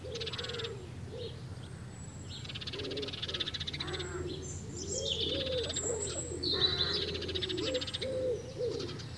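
Birds calling: low, repeated cooing calls of doves with higher chirps of small birds above them.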